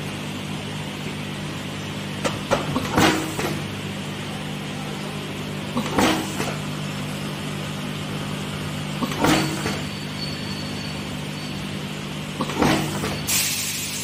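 A YH-ZDP connector pin crimping machine with a feeding bowl hums steadily, and its crimping head strikes four times, each stroke a sharp clatter of clicks about three seconds apart, as wires are fed in one by one. A short hiss of air comes near the end.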